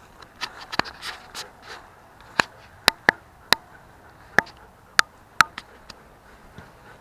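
A string of sharp clicks and knocks, about eight, with some rubbing and scraping between them, as of hard objects being handled and set down.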